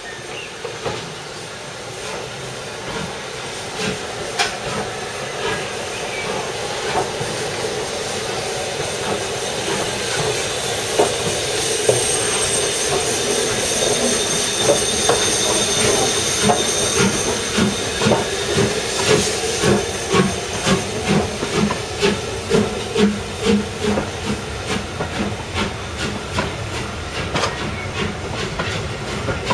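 LMS Jubilee class three-cylinder 4-6-0 steam locomotive 45699 'Galatea' pulling away slowly with its train: steam hissing, and the sound growing louder as it draws past. In the second half come regular heavy exhaust beats, roughly one a second.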